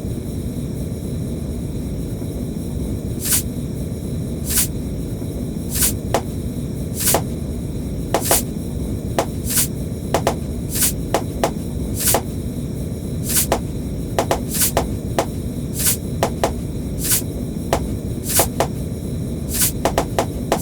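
Popcorn popping over a steady low rumble. Sharp single and double pops start about three seconds in, come at irregular intervals and grow more frequent toward the end.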